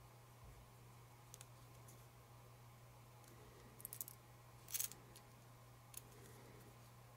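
Faint handling sounds: a few light clicks and short scratches as a fine-point Sharpie marker is worked over a small model steel coil turned in the fingers. The loudest is a brief scratch a little before five seconds in.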